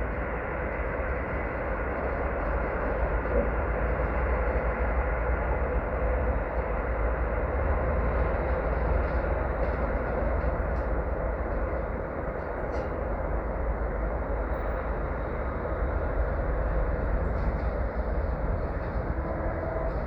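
ChME3 diesel shunting locomotive running, a steady low rumble that holds throughout.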